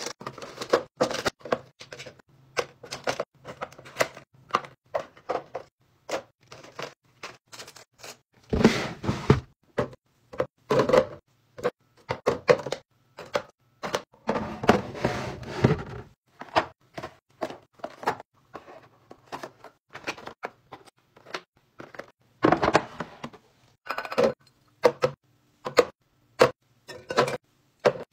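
Plastic toiletry bottles, jars and packets being set down and shuffled into a clear plastic organizer bin on a counter: a long irregular run of short taps and knocks, broken by two longer, noisier stretches about a third and halfway through.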